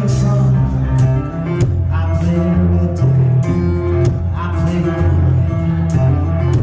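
Live rock band playing loudly: a male lead singer over acoustic guitar, electric bass and drums, with a heavy bass line and regular cymbal hits, heard from the audience in a concert hall.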